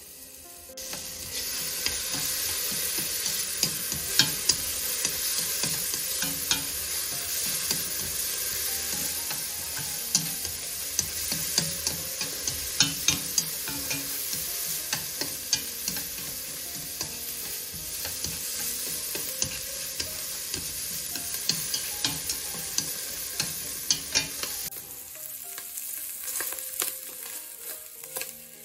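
Chopped ginger, lemongrass and chili sizzling as they fry in butter in a stainless steel pot, with wooden chopsticks ticking against the pot as they stir. The sizzle starts about a second in and drops away near the end.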